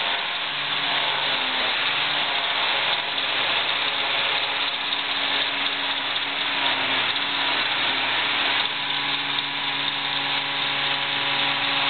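Steyr 8320 tractor working a front-mounted forage harvester through grass: engine and chopper running steadily under load, a constant mechanical drone with a high whine in it.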